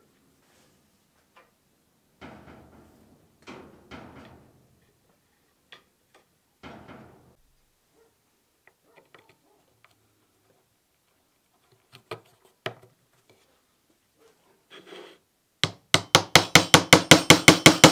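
Scattered light knocks and rustles as wooden bucksaw handle pieces are handled on a workbench, then, near the end, a fast, even run of hammer taps on metal, about seven a second, at the end of the wooden handle where a metal pin sits.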